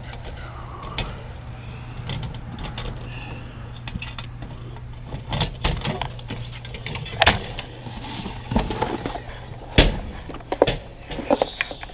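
A key jingling and turning in the lock of a metal cluster mailbox, then the thin metal door clanking open and a parcel box being slid out, giving a string of sharp metallic clicks and clanks, the loudest about ten seconds in. A steady low hum sits underneath.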